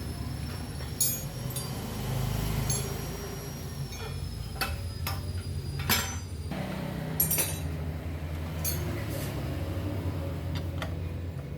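Irregular sharp metallic clinks and knocks of hand tools on metal, about ten of them, as the exhaust of a Honda Verza motorcycle is unbolted. A steady low hum runs underneath.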